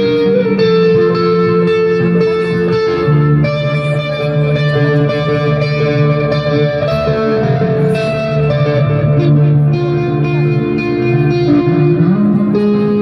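Electric guitar played live through effects with heavy reverb: slow, held notes and chords that change every few seconds, with a note sliding up near the end.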